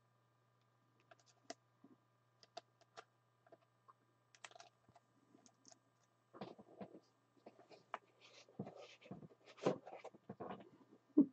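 Faint scattered clicks and taps at the desk, then a denser run of soft knocks and rustles in the second half, with the loudest knock near the end.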